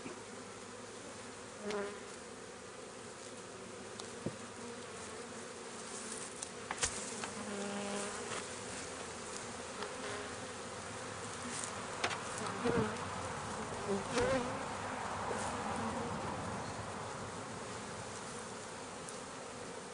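Honey bees buzzing in a swarm around an opened Langstroth hive, a steady hum with individual bees' buzz bending in pitch as they fly close. A few light knocks sound in the first half.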